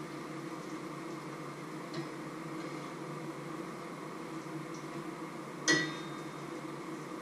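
Cooking at a frying pan on an electric stove: a steady background hiss and hum, and one sharp metallic clink of a utensil against the pan about five and a half seconds in, with a lighter tick about two seconds in.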